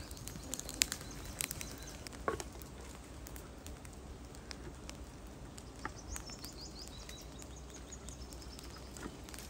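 Outdoor ambience of scattered sharp crackles and snaps over a low rumble, with a short run of high bird chirps about six seconds in.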